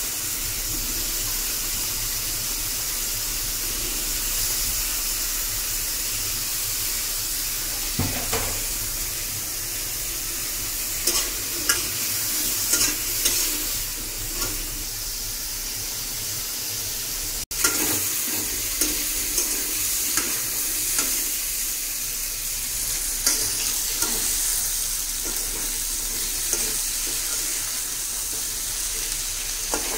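Potato cubes frying in oil in an aluminium pot, a steady sizzle. From about eight seconds in, a metal spatula scrapes and knocks against the pot at irregular moments as the potatoes are stirred.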